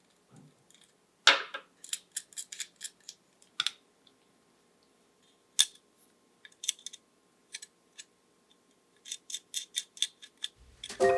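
Coffee beans cracking in a hand roaster over the flame: sharp, irregular pops and crackles in loose clusters, a sign the roast has reached first crack.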